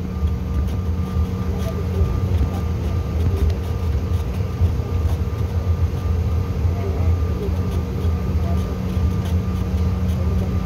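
Cabin noise of a Bombardier CRJ900 taxiing: a steady low rumble with the constant hum of its rear-mounted GE CF34 turbofans at taxi power.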